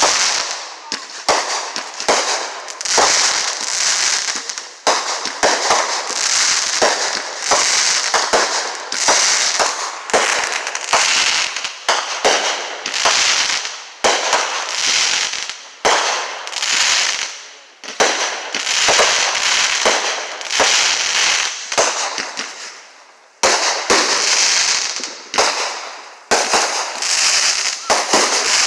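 Fireworks going off continuously: sharp bangs over dense crackling. It comes in waves that start suddenly and fade, one every second or two.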